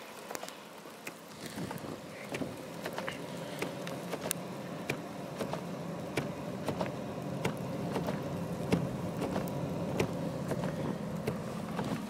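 Car engine running close by, a steady hum that grows louder over the first several seconds, with scattered sharp clicks throughout.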